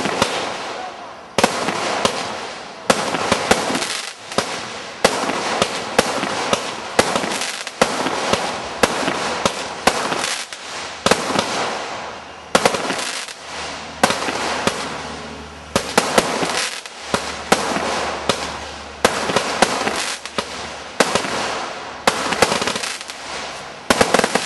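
A 25-shot consumer firework cake fires shot after shot, about one every second or so. Each shot is a sharp bang followed by crackling that fades before the next.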